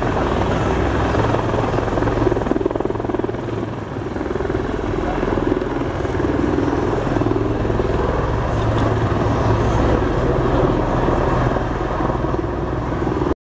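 MV-22B Osprey tiltrotor flying a display pass, its rotors giving a loud, steady drone with a wavering, pulsing tone above it.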